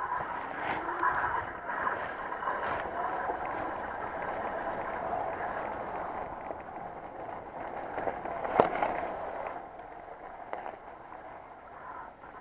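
Electric mountain bike rolling fast downhill on a wet, muddy dirt trail: a steady rush of tyre and wind noise, with one sharp knock about two-thirds through as the bike jolts, then quieter near the end as it slows.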